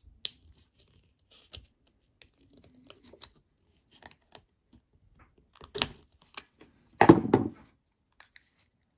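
Plastic key fob shell being pried apart with a flat screwdriver: scattered small clicks and scrapes of the blade against the plastic, and a louder half-second burst of cracking plastic about seven seconds in as the halves come apart.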